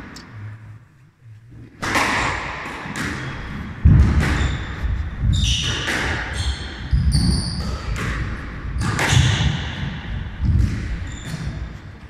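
Squash rally: the ball cracks sharply off rackets and court walls every half second or so, mixed with heavy thudding footsteps and brief high squeaks of court shoes, all echoing in the enclosed court. The strikes begin about two seconds in.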